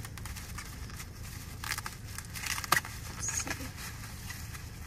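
Bubble wrap being handled and unwrapped, crinkling and rustling in short bursts, with one sharp snap a little under three seconds in.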